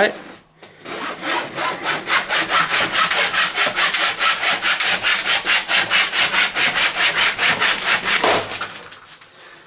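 One plastic packing strap sawn rapidly back and forth across another, rasping at about five strokes a second as the friction heats the embossed bands. The rubbing stops suddenly a little after eight seconds in, when the heated strap pops apart.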